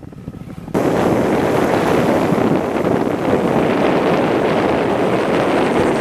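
Wind rushing and buffeting over the microphone of a moving motorbike, a loud, steady rushing noise that cuts in abruptly under a second in, after a quieter moment.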